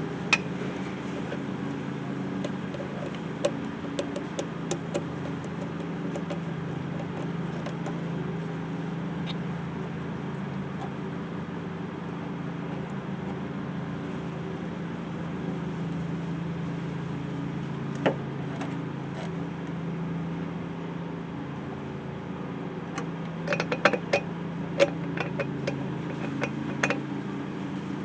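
Metal clinks and taps of tools and intake parts being fitted and tightened under a truck hood, a few at the start, one in the middle and a flurry near the end, over a steady engine hum.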